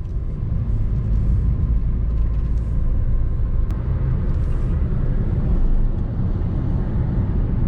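Steady low rumble of engine and tyre road noise inside the cabin of a moving Maruti Suzuki Ciaz.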